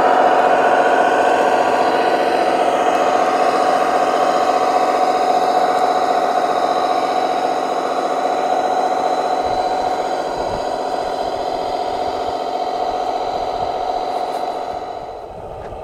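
Radio-controlled scale Mercedes Arocs 6x6 truck with a tipper semi-trailer driving through loose sand, giving a steady mechanical hum that drops away about a second before the end.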